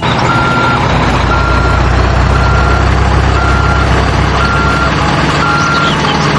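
Truck reversing alarm beeping steadily about once a second over a low engine rumble.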